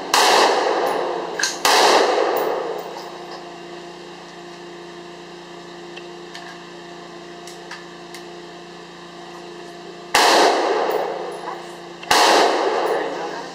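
Four shots from a scoped AR-15 rifle firing .223 rounds, in two pairs: two close together at the start and two more about eight seconds later. Each shot is followed by a second or so of echo under the range's metal shelter roof.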